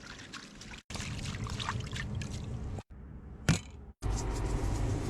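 Water poured and trickling as muddy wild greens are rinsed, heard in a few short clips with abrupt cuts between them. A sharp knock about three and a half seconds in.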